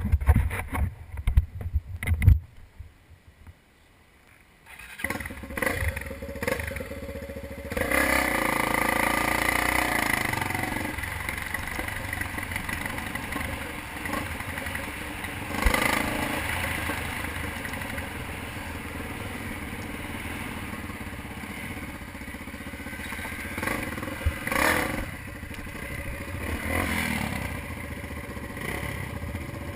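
Off-road motorcycle engine running as the bike rides a dirt trail, coming in a few seconds in and getting louder, with brief surges of throttle later on. Low thumps and knocks at the start.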